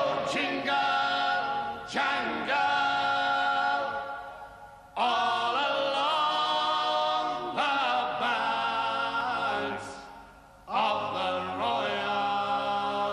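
Unaccompanied voices singing a slow folk ballad in long held phrases, separated by short pauses.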